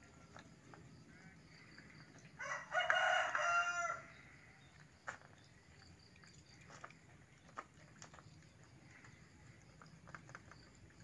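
A rooster crowing once, a loud call of about a second and a half beginning some two and a half seconds in. Faint scattered clicks follow, from cats eating out of plastic bowls.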